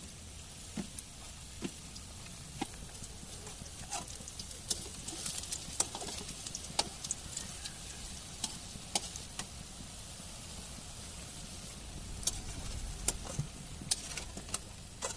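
Gram-flour pakoras deep-frying in hot oil in a metal kadhai: a steady sizzle with scattered sharp clicks and pops throughout, as a metal spatula moves the fritters about in the pan.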